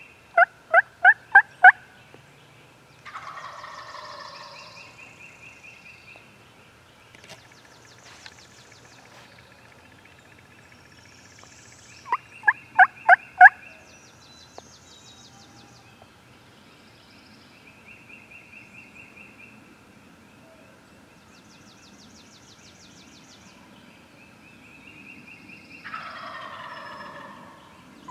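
Loud runs of five or six hen-turkey yelps, about four a second, each answered a couple of seconds later by a quieter, rolling gobble from a wild turkey gobbler. The exchange runs twice, and a third run of yelps starts at the very end.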